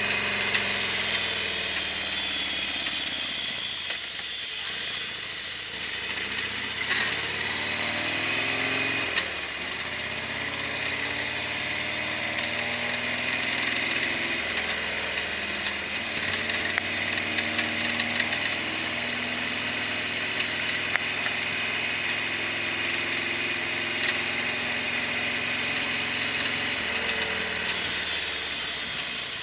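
Harley-Davidson XL1200R Sportster's air-cooled V-twin running on the move, its revs rising and falling several times, with dips around four seconds in, around nine seconds in, and near the end.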